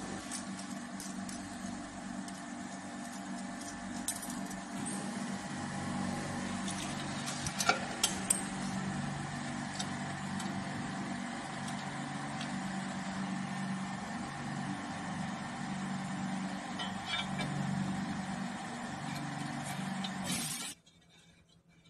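Steady machine hum, with a few sharp metal clinks as parts of a powder filling machine are handled, the loudest a pair about eight seconds in. The hum cuts off suddenly near the end.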